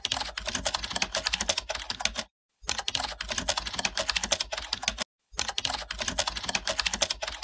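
Rapid typing on a computer keyboard, a dense stream of key clicks in three runs of about two and a half seconds each, cut apart by two brief moments of dead silence.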